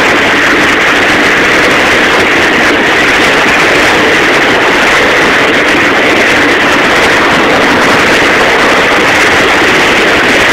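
Loud, steady rush of a boat's wake, churning white water behind a running boat, mixed with the boat's motor noise.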